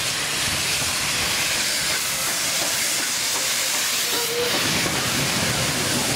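Somerset & Dorset Joint Railway 7F 2-8-0 steam locomotive No. 88 drawing slowly alongside the platform, with a steady loud hiss of steam.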